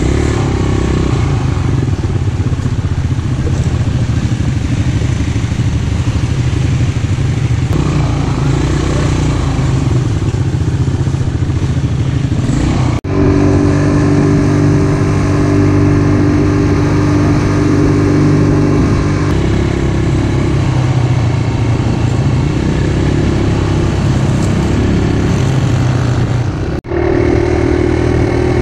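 ATV (quad bike) engine running under throttle, heard from on the machine, with a steady mechanical drone. The sound breaks off abruptly twice, about 13 seconds in and again near the end.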